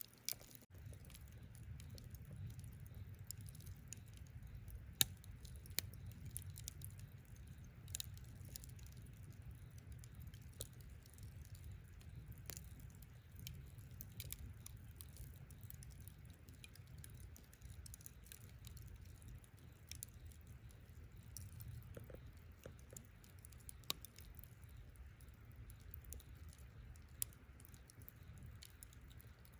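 Wood campfire crackling, with irregular sharp pops and clicks over a low steady rumble.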